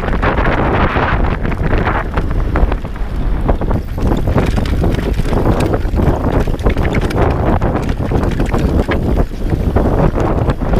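Wind buffeting the microphone on a moving enduro motorcycle, with the engine running underneath and many short knocks and clatters from riding over rough ground.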